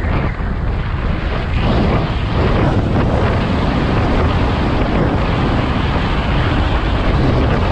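Steady wind buffeting on a helmet-mounted microphone from riding an electric scooter at speed.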